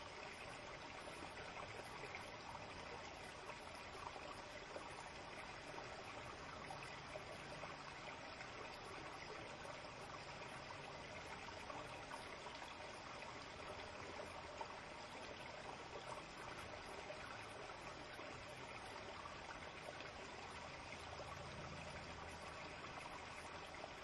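Shallow forest stream flowing steadily with a soft trickle of water.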